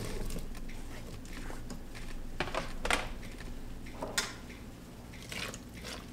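Chopped bell peppers and onion scraped off a plastic cutting board into an Instant Pot's stainless steel inner pot, then a utensil working in the pot. Light scraping and patter with a few sharp clinks against the pot, one about three seconds in and one about four seconds in.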